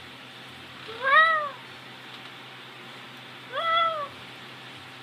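Domestic cat meowing twice, each meow about half a second long, rising then falling in pitch. The calls are a bid to be let out of his room.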